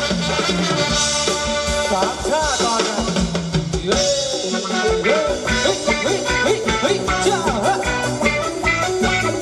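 Thai ramwong dance music from a live band: a steady drum-kit beat under a wavering, gliding melodic lead.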